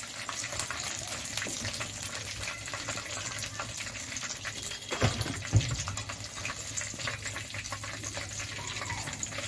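Chicken pieces deep-frying in a karai of hot oil, a steady dense sizzle full of small crackles. Two dull knocks come about five seconds in, half a second apart.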